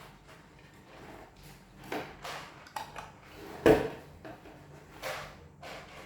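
Handling noises from unboxing drone parts and packaging: a string of short knocks, clicks and scrapes, with one sharp, loud knock a little past halfway.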